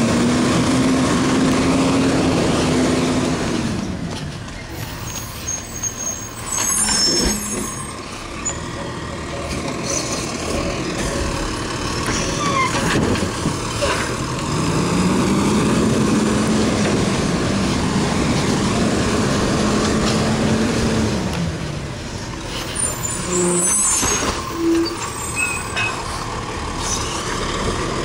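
Automated side-loader garbage truck's engine revving up, holding high for a few seconds and dropping back twice as it powers the hydraulic arm that dumps a cart. Between the revs come short air-brake hisses and clanks as the truck moves on and stops.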